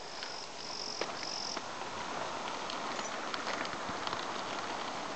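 An insect calls with three short, high, steady buzzes in the first second and a half, over a steady rushing background with light scattered ticks.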